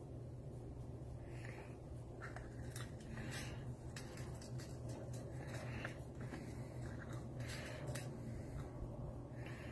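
Faint light clicks and scrapes of tiny lock pins being handled and dropped into a padlock cylinder, scattered irregularly over a steady low hum.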